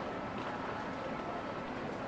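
Café ambience: a steady hiss of rain with an indistinct murmur of patrons talking.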